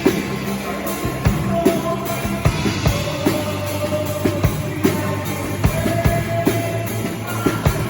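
Christian worship band playing a song live: the drum kit keeps a steady beat under bass notes and long held melody notes.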